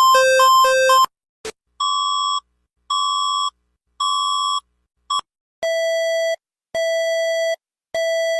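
Electronic emergency-alert tones: a rapid alternating high-low beep cuts off about a second in, then after a click come three evenly spaced beeps, a brief blip, and three longer, lower beeps about a second apart.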